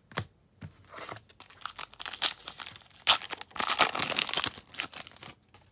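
Foil trading-card pack being torn open and crinkled in the hands. A short tap comes near the start, and the crackling builds from about a second and a half in, loudest toward the end, then stops just before the end.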